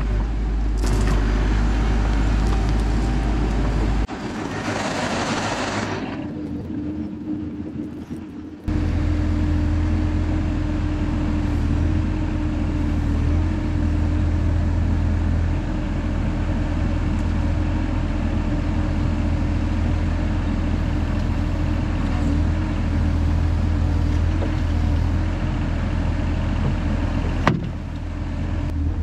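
Engine of heavy work equipment running steadily. The sound changes abruptly twice early on, and a brief hiss comes about five seconds in.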